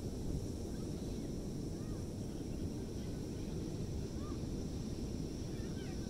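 Beach ambience: a steady low rumble of wind and distant surf, with a few faint, short high calls now and then.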